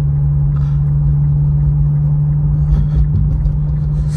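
Infiniti Q50's 3.7-litre V6 running at steady revs with a low tyre and road rumble, heard from inside the cabin while driving on a snowy road.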